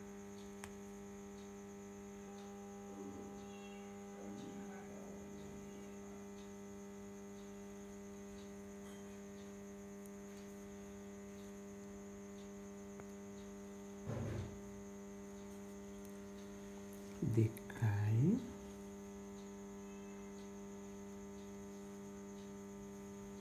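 Steady electrical mains hum with a stack of buzzing overtones, broken by a brief soft sound about two-thirds of the way through and two short, slightly louder sounds soon after.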